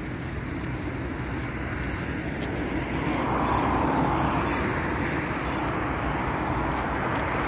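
A car passing on wet, slushy asphalt: tyre and engine noise swell about three seconds in over steady road traffic noise.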